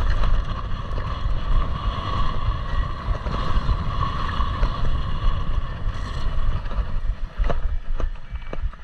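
Wind rushing over a rider-mounted camera microphone and knobby tyres rolling on dirt and grass as a downhill mountain bike coasts to the finish, with a steady high hum through the first half. Near the end, as the bike slows, a few separate sharp clicks.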